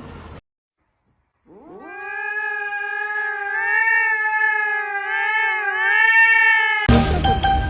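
A cat yowling: one long call of about five seconds that rises at the start, then holds with a slight waver before cutting off abruptly.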